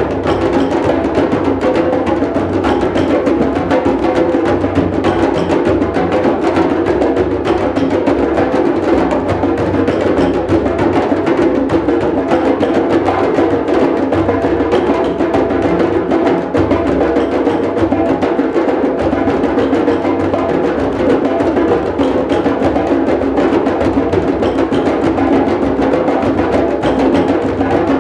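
A drum circle playing together: many hand drums and percussion instruments keep a dense, continuous groove, with no breaks.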